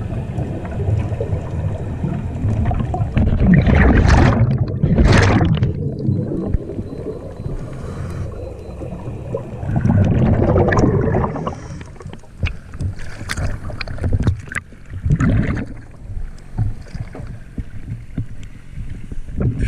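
Underwater scuba sounds: a low rumble of water with several loud rushing bursts of exhaled regulator bubbles, about four, five and ten seconds in. In the second half it turns quieter, with short splashes and clicks of water as the camera comes up to the surface.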